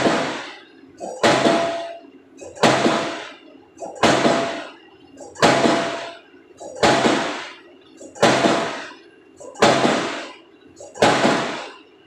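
Diesel pile hammer driving a PHC spun concrete pile: about nine heavy blows, evenly spaced about a second and a half apart. Each blow is a sharp bang followed by a short blast that fades within a second.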